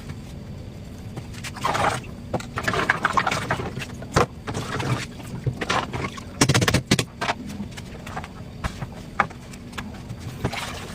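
A knife cutting and scraping through watermelon rind and flesh in irregular short strokes with a few sharp clicks, loudest about six and a half seconds in, over a steady low hum.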